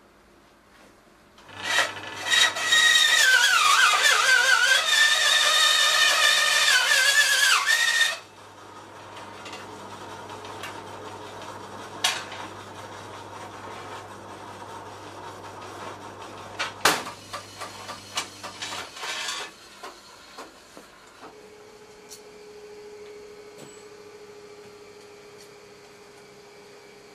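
Metal-cutting band saw cutting through a steel tube: a loud rasping grind with a wavering, ringing squeal for about six seconds. The saw's motor then hums on with a few sharp knocks before it stops.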